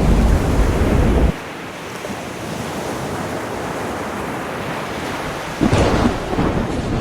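Ocean waves washing in, with wind buffeting the microphone. A heavy low rumble cuts off abruptly about a second in, leaving a quieter steady wash, and a louder wave surges in near the end.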